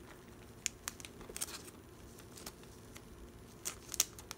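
Clear plastic sleeve crinkling and crackling as it is handled, in scattered short crackles, the loudest near the end.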